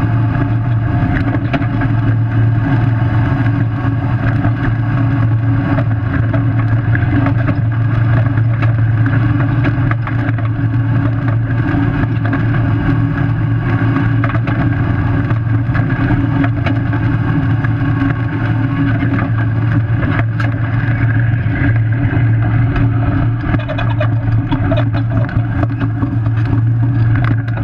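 Steady running noise of a solid-axle-swapped 4th-gen Toyota 4Runner cruising down a dirt road in four-wheel drive, heard from under the front axle: a continuous low drivetrain and engine drone with tyre and road noise.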